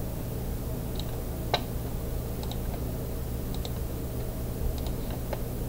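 Computer mouse clicking about half a dozen times at uneven intervals while selecting lines for a mirror operation, over a steady low hum.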